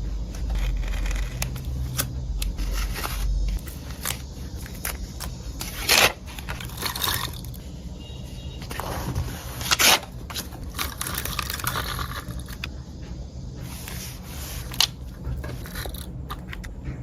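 Paper and stationery being handled close to the microphone for journal collage: irregular scraping and rustling with small taps, and two louder, sharper sounds about six and ten seconds in.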